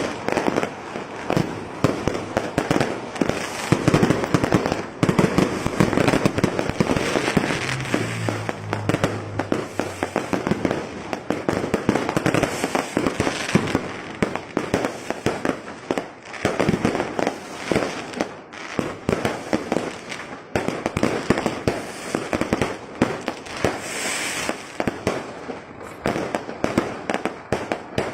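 Fireworks going off in a dense, unbroken barrage of overlapping bangs and crackling firecracker pops.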